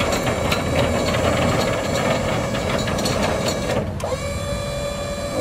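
Truck hydraulic liftgate running, with a steady motor hum and scattered sharp clicks and rattles from the gate's metal parts. Just before four seconds in, the sound dips briefly, then comes back with a rising tone that settles.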